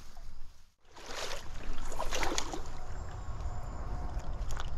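Stream water splashing and sloshing close by, over a steady low rumble. The sound cuts out for a moment just under a second in, then the splashing returns.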